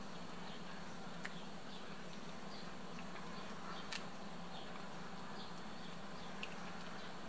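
A steady low electrical hum, with a metal ladle clinking lightly against the enamel pot and plate three times as porridge is ladled out.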